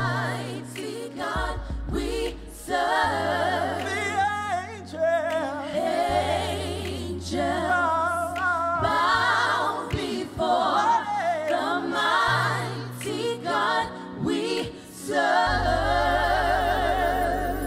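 Live gospel singing: a lead male voice and a small backing choir sing with wavering, held notes over steady low bass notes that shift every couple of seconds.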